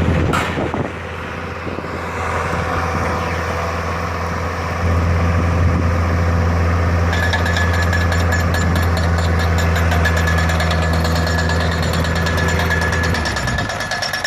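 Steady low drone of a running engine or machine, which drops off near the end. About halfway a rapid mechanical rattling, like hammering, joins it.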